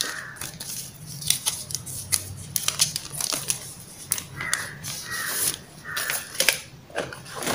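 Plastic wrapping crinkling and rustling as it is peeled off a smartphone, with many small clicks and taps from handling the phone.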